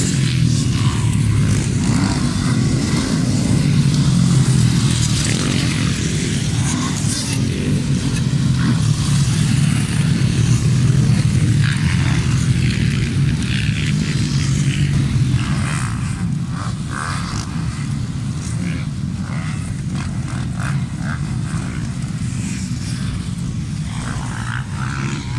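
Several motocross bikes running hard on a dirt track, their engines passing close and fading into the distance as they ride through a curve. The engine noise eases a little about two thirds of the way through.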